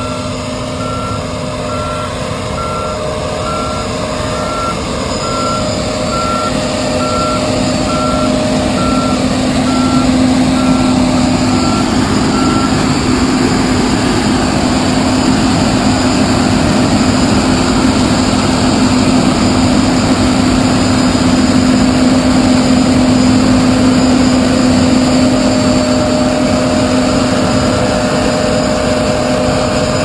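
John Deere S690 combine harvester running, its engine and threshing machinery making a steady drone, with a back-up alarm beeping regularly for about the first twelve seconds. The drone then grows louder as the combine passes close by, and eases off a little near the end.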